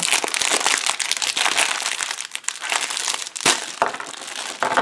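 Plastic candy bag crinkling as it is torn and pulled open by hand: a dense crackle with scattered sharp clicks, one louder snap about three and a half seconds in.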